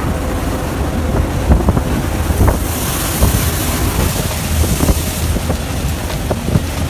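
Storm wind buffeting the microphone aboard a ship, over a steady low rumble and the rush of waves. A louder hissing gust or burst of spray comes about three seconds in and lasts a couple of seconds, with scattered short knocks throughout.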